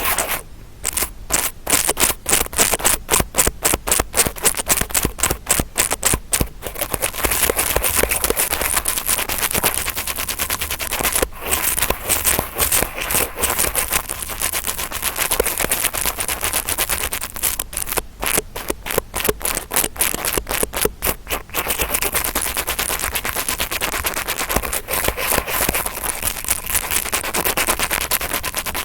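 Interdental brush scratching and rubbing close against the microphone to imitate ear cleaning, a continuous scratchy scraping. Twice it breaks into runs of fast, even strokes, one near the start and one about two-thirds through.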